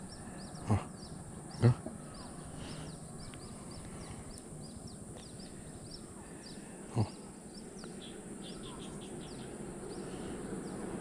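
Small birds chirping continuously, a rapid series of short falling chirps, with three sharp knocks, about a second in, two seconds in and seven seconds in. A low rumble slowly builds near the end.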